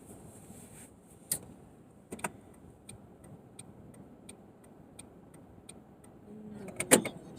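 Car turn signal clicking steadily, about one click every two-thirds of a second, heard inside the cabin. A sharper knock comes a little over a second in, and a louder single knock near the end.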